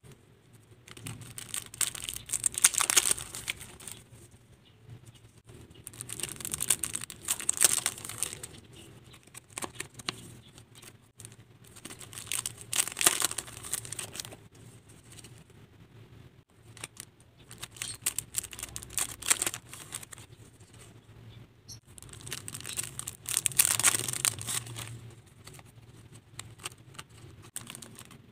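Clear cellophane wrapping on packs of sticky-note tabs crinkling and tearing as it is handled and opened. It comes in about five bursts a few seconds apart, with quieter handling between.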